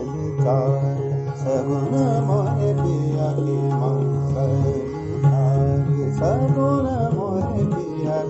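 Male Hindustani classical vocal in Raag Shudh Kalyan, sung on an open vowel without words in long gliding, ornamented phrases. Underneath are a steady drone and tabla accompaniment.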